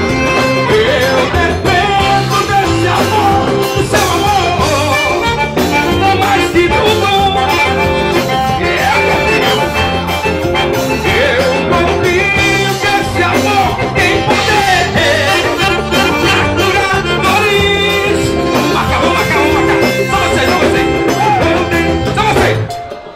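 Live band playing an instrumental break, with accordion and electric guitar over drums. The music drops away sharply near the end.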